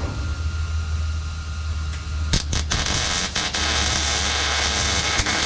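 A steady low hum, then a few sharp clicks about two and a half seconds in as a welding arc strikes and runs with a continuous crackling hiss, laying a tack weld on the steel shifter hump.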